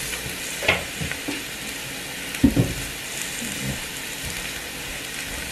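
Metal kitchenware being handled on a counter: a stainless steel colander and a pot give a few short knocks and clinks, the strongest about two and a half seconds in, over a steady hiss.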